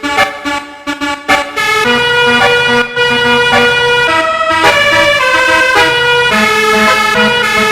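A 'telolet basuri' multi-trumpet horn set, played from a pianika-style keyboard, sounding a melody. A few short stabbed notes come first, then held notes that step to a new pitch every second or so.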